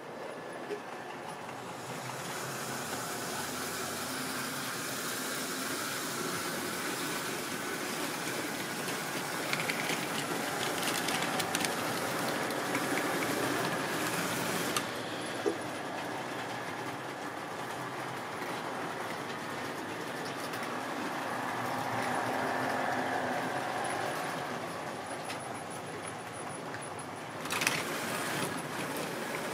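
Model railway goods train running along sectional track: the steady rumble of the electric locomotive and the wagons' wheels on the rails, growing after the first couple of seconds. A few sharp clicks come from wheels crossing rail joints and points, with a short louder rattle near the end.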